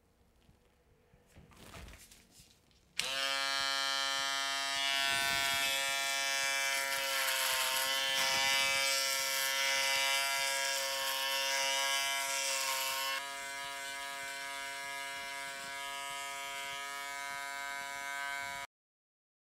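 An electric shaver switches on suddenly about three seconds in and runs with a steady buzzing hum as it is drawn over the jaw. It gets quieter about ten seconds later, then cuts off abruptly near the end.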